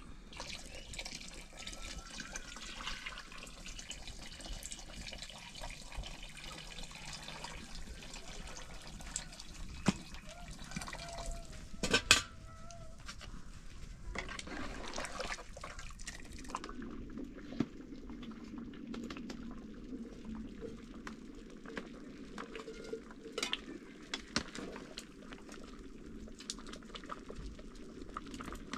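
Liquid being poured and handled, with scattered clinks of dishes and one sharp knock about twelve seconds in.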